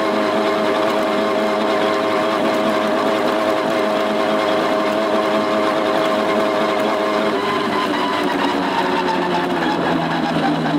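Small 58 cc two-stroke brushcutter engine driving a motorized bicycle, running steadily at high revs with a buzzing note. From about seven seconds in, its pitch falls as the revs drop.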